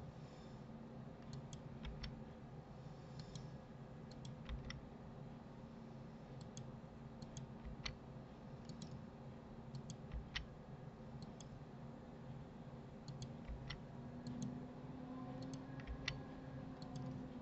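Sparse, irregular clicks of a computer mouse and keyboard as vertices are selected and moved, over a faint steady hum.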